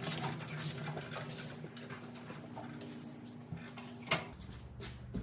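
Champion 11500/9200 W portable generator engine running steadily while it warms up with no load, heard faintly, with a sharp knock about four seconds in.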